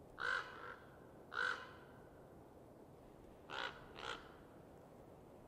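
A bird calling four times in short calls, two about a second apart near the start and a quicker pair about three and a half seconds in, over a faint steady hiss.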